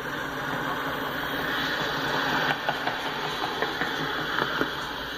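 Norfolk Southern diesel locomotive's engine running steadily as it rolls past, with a few light clicks partway through.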